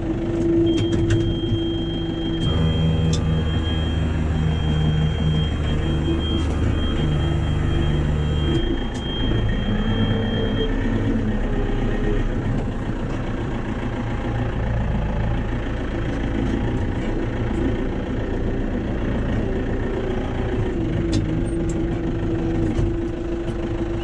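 Tractor diesel engine running just after start-up, heard from inside the cab. It is heavier and louder for several seconds as the tractor moves off, then settles to a steadier run. A steady high-pitched tone sounds from about a second in until about ten seconds in.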